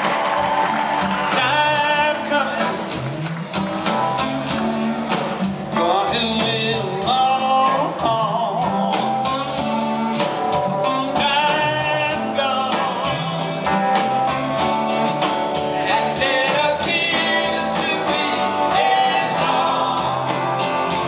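Live rock band playing electric guitars and drums, with singing.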